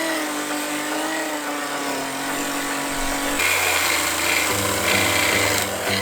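Chainsaw running steadily at high revs, its pitch sagging slightly. Background music comes in about halfway through.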